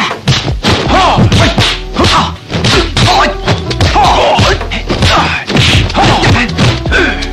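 Dubbed kung fu fight soundtrack: a rapid run of foley punch and block whacks, about two or three a second, with the fighters' shouts over music.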